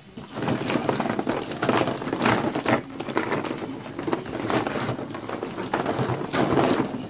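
Plastic ball-pit balls clattering and rustling against each other and the plastic pool as a ferret burrows through them: a dense run of small clicks and knocks with irregular louder surges.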